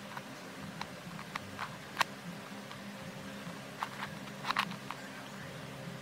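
Plastic 3x3 Rubik's cube being turned by hand, its layers giving scattered sharp clicks, the loudest about two seconds in and a quick cluster past four and a half seconds, over a steady low hum.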